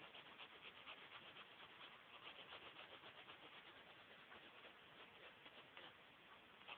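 Pencil point scratching on paper in quick, short shading strokes, faint.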